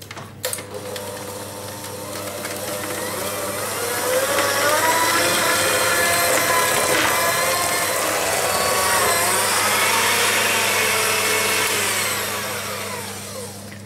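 Electric hand mixer beating cake batter in a stainless steel bowl: the motor whines up to speed over the first few seconds, runs steadily, then winds down in pitch near the end. The batter is being whisked to work air into the sponge mix until it is light and fluffy.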